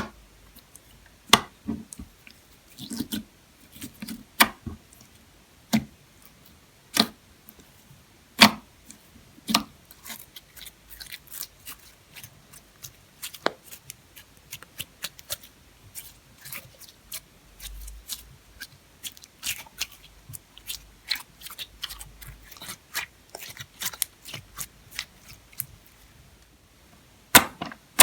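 Slime being pressed and kneaded by hand, giving irregular sharp clicks and pops. The clicks are sparser and louder at first, come thicker and softer through the middle, and a few loud pops land near the end.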